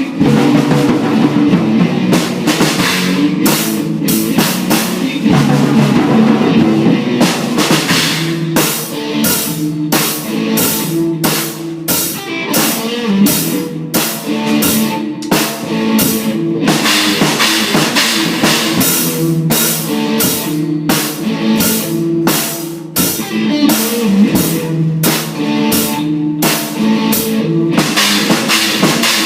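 Rock music played on guitar and drum kit: a riff over steady beats, with regular drum and cymbal hits.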